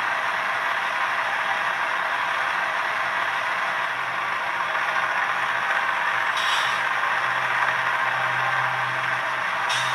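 Model locomotive sound decoder (LokSound V4.0) playing a GE GEVO-12 diesel prime mover running steadily in notch 4, through the model's small onboard speaker, with the air compressor sound running. Two short hisses come about six and a half seconds in and near the end.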